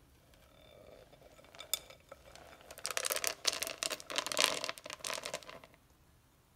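Dry flour-and-cocoa mix with chocolate chips poured from a bowl into a glass mixing bowl. It makes a rustling pour full of small clicks, lasting about three seconds from near the middle, after a light clink about two seconds in.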